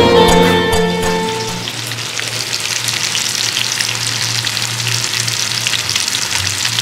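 Hilsa fish frying in hot oil in a pan, a steady sizzling crackle. A music track fades out over the first second or so.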